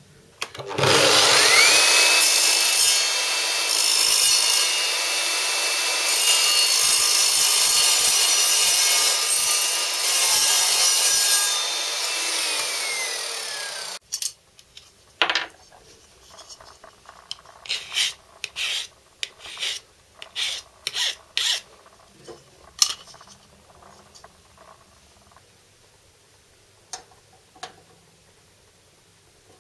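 Evolution mitre saw motor whining up to speed about a second in, running steadily through a cut in aluminium angle for about eleven seconds, then winding down. After that come scattered light clicks and short scrapes.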